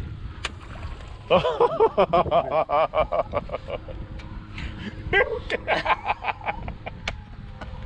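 A man laughing hard in two long bursts of rapid ha-ha pulses, with a few sharp knocks in between.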